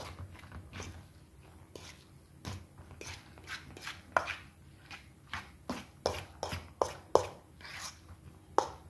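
Fork knocking and scraping against a stainless steel bowl while mixing a ricotta and egg mixture: irregular short clicks with a slight metallic ring, a few sharper knocks a little after four seconds in and near the end.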